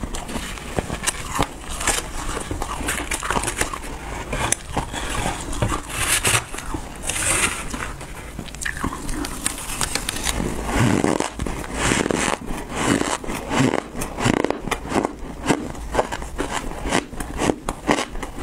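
Close-miked crunching and chewing of mouthfuls of frozen shaved ice, mixed with a metal spoon scooping and scraping through the ice in the bowl; a steady stream of quick crackles and crunches.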